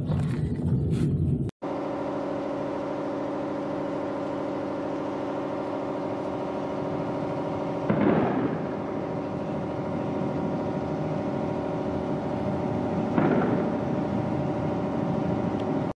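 Steady drone of a warplane's engine overhead, with two sudden muffled blasts partway through, the second weaker than the first. A short rumble at the very start cuts off abruptly.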